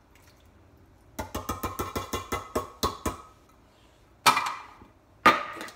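A small metal food can being tapped and scraped to empty it. A quick run of ringing clicks is followed by two sharp, louder metallic knocks.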